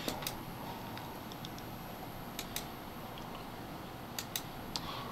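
Quiet room tone with a handful of faint, sharp clicks from working a computer, some of them in quick pairs.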